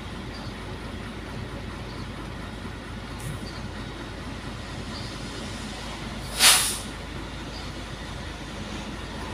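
Truck engine idling steadily, heard from inside the cab. About six and a half seconds in comes one short, loud hiss of air from the truck's air brake system.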